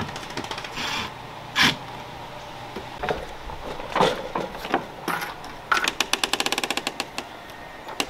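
RV entry door's newly fitted keyless lock handle and latch being worked: a series of sharp clicks and knocks as the door is unlatched and swung open, then a quick even run of rattling clicks, about a dozen a second, a little over a second long.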